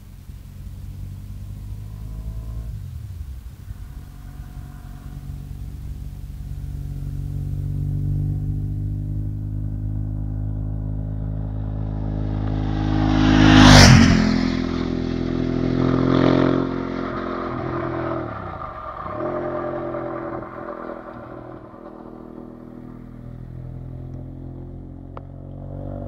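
Ducati 998S's L-twin engine through a Sil aftermarket exhaust, approaching at speed and passing close about halfway through, with a sudden drop in pitch as it goes by. It then accelerates away, the revs climbing again after gear changes, and fades.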